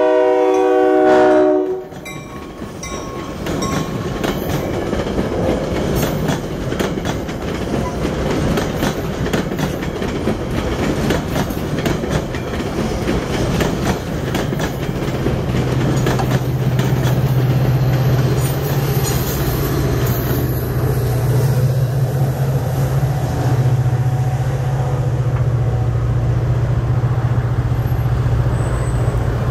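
Metra commuter train's horn cutting off about two seconds in, then the bilevel passenger cars rolling past with a steady clatter of wheels over the rails. A steady low drone comes in about halfway through.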